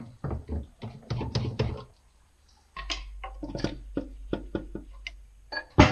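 Pry bar working at the seam of an NV273F transfer case to split its case halves: a run of sharp metal knocks and clicks, with a short pause about two seconds in.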